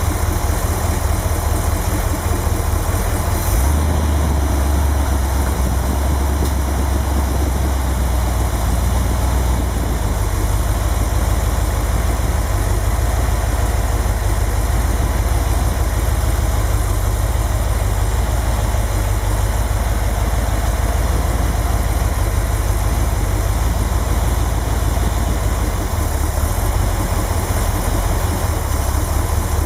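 A newly restored 1955 Buick Super's 322 cubic-inch Nailhead V8 idling steadily. Its deep low rumble grows stronger about three and a half seconds in.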